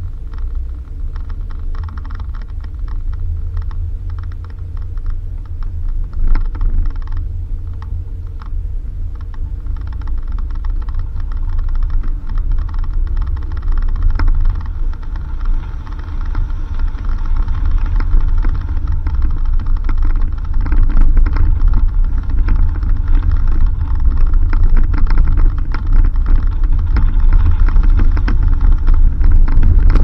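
Low rumble of a car driving on a dirt road, with many small rattles and clicks over it, growing louder toward the end.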